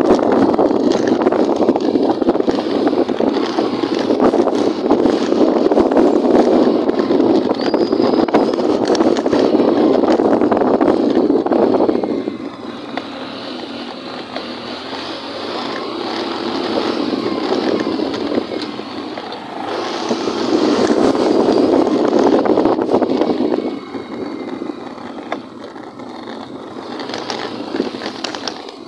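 Wind rushing over the microphone of a moving motorcycle, with its engine running underneath. Loud for about the first twelve seconds, then quieter as the ride slows, swelling again for a few seconds just past the middle.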